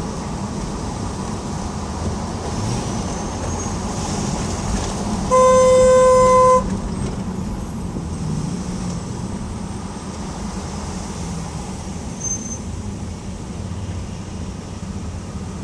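Steady road traffic running over the Queensboro Bridge. About five seconds in, one vehicle horn sounds a single steady honk lasting just over a second, loud above the traffic.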